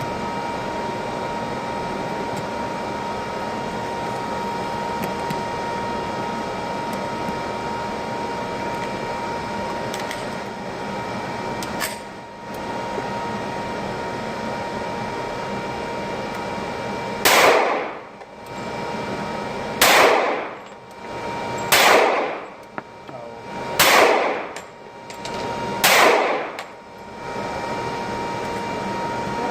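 Five gunshots fired at the range, about two seconds apart, each a sharp crack with a short ringing tail. Under them runs a steady hum with a fixed tone.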